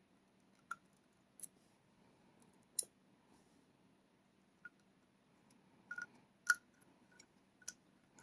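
Small sharp clicks and taps of metal parts and tools being handled while pin tumblers are loaded back into a rim cylinder lock, about eight scattered through the stretch at uneven intervals, the loudest about three seconds in and again about six and a half seconds in.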